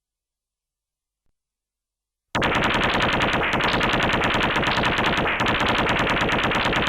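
Stun gun discharging: a loud, rapid electric crackle that starts suddenly about two seconds in and keeps going without a break, after near silence.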